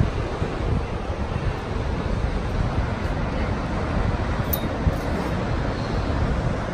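Steady rushing noise of wind on the microphone mixed with ocean surf.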